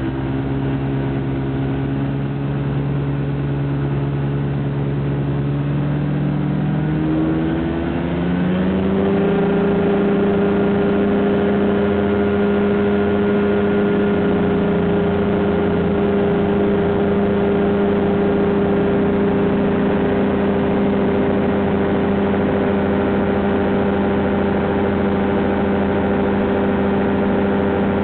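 Light aircraft's piston engine and propeller heard from the cockpit during a touch-and-go. It runs at low power on the ground roll, then rises in pitch over a couple of seconds about seven seconds in as the throttle is opened, and holds steady at takeoff power through the climb-out.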